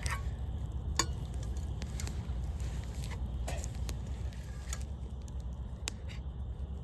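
Campfire burning, with a few sharp crackles and pops scattered over a steady low rumble.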